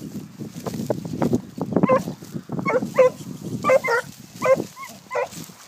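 Porcelaine hounds on long leads giving tongue in short, high yelping calls, about six of them from around two and a half seconds in, as they work a wild boar's scent line. Footsteps and rustling through grass come before the calls.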